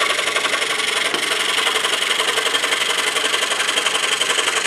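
DeWalt scroll saw running with an Olson No. 5 blade, cutting through a stack of three wooden pieces: a steady, rapid buzz from the reciprocating blade strokes.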